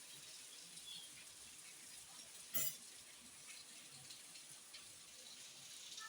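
Heavy rain falling as a steady hiss, with one brief sharp knock about two and a half seconds in.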